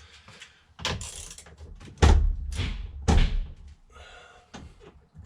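Hand tools clunking and knocking during work on a steering wheel, with three heavy thuds about one, two and three seconds in.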